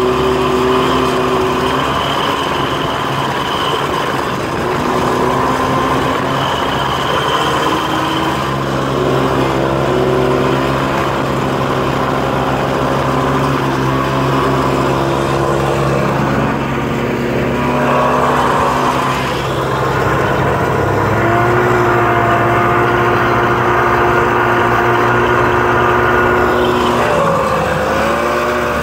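Vintage two-stroke snowmobile engines running at speed over snow, a steady loud drone whose pitch shifts with the throttle, most clearly about two-thirds of the way in and again near the end.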